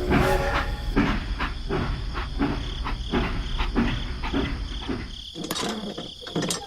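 Crickets chirping steadily, under a run of irregular knocks and clatter over a low rumble, a few knocks each second, easing off near the end.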